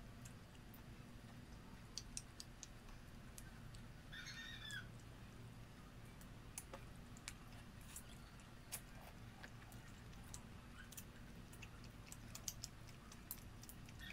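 Faint scattered clicks and smacks of shrimp being peeled by hand and chewed, over a low steady hum, with a brief high chirp about four seconds in.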